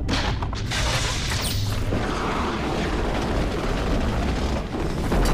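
Film sound effects of a house being torn loose from its foundations. A loud, deep rumble with crashing starts suddenly and goes on without a break.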